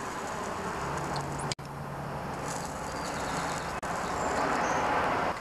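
Electric soldering gun humming steadily as its tip heats flux-coated wires, with a sizzling hiss that grows louder toward the end as the rosin flux and solder heat up.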